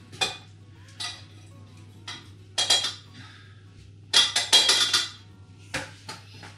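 Metal saucepan and lid clanking and clinking in a string of short knocks, the busiest cluster about four seconds in, as a pot of boiled potatoes is handled.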